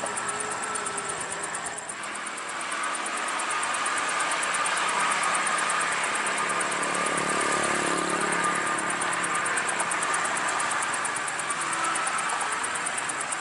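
Toll-road traffic going by: tyre and wind noise from passing buses and cars swells a couple of seconds in and stays loud, with a bus engine's low hum coming through about halfway. Crickets chirp steadily throughout.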